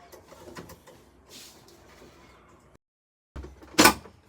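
Plastic casing of an HP LaserJet M1005 printer being handled and opened: faint clicks and rattles, then one loud sharp clunk nearly four seconds in, followed by more clicks.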